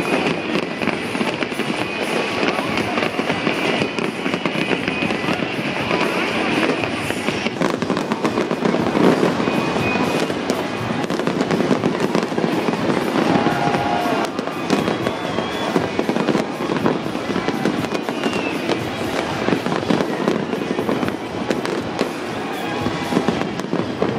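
Fireworks display going off without pause: dense crackling and a steady run of bangs, with music playing underneath.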